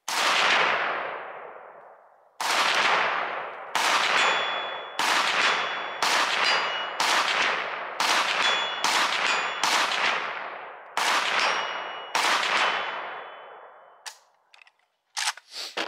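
Semi-automatic fire from a 3D-printed AK pistol (Plastikov v3 Draco build) in 7.62x39: about a dozen single shots, the first two some seconds apart, the rest about a second apart, each echoing away over a second or so. After several shots a high ring follows as the bullet strikes a steel target, and a few light clicks come near the end.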